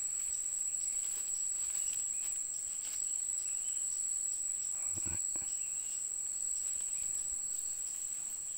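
Insects singing in a steady, shrill, unbroken drone. There is a brief low thud about five seconds in.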